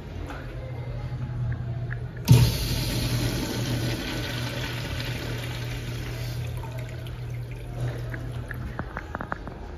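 American Standard WashBrook urinal flushing through its flush valve: a sudden rush of water about two seconds in that runs steadily for a few seconds, then tapers off.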